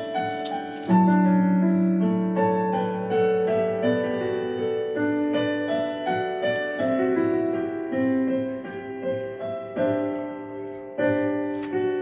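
Background piano music, a melody of notes and chords struck one after another.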